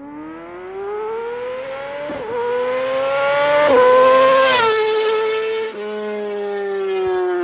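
Intro sound effect of a revving engine: one pitched tone that climbs in pitch through several stepwise shifts, peaks about four seconds in, then eases off and slowly falls.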